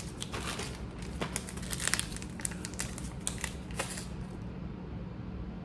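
Packaging crinkling and rustling in quick crackles as a small item is unwrapped by hand, dying away about four seconds in.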